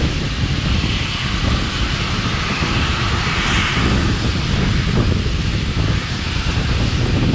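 Steady rumble and rush of air from a train running at speed, with wind buffeting the microphone.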